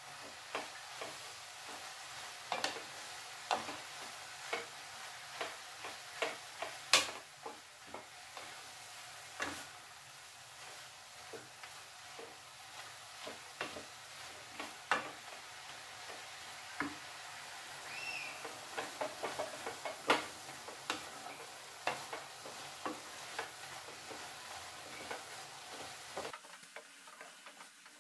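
Grated carrots sizzling in ghee in a metal kadhai while a spatula stirs them, scraping and knocking against the pan about once a second. The carrots are being stirred constantly as they fry so they don't catch and burn on the bottom.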